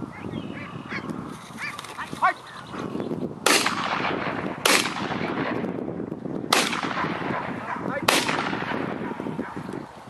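Four shotgun shots, sharp cracks with a short echoing tail, the first about three and a half seconds in and the rest a second or two apart.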